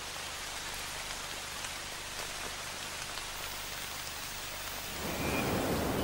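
Rain and spray falling on rainforest leaves: a steady hiss with a fine patter of drops. About five seconds in, a louder, deeper rushing sound comes in.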